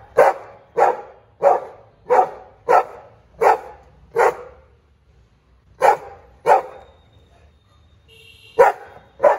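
Black-and-white pit bull-type dog barking in sharp single barks: a run of seven about two-thirds of a second apart, a short pause, two more, then after a longer pause two more near the end.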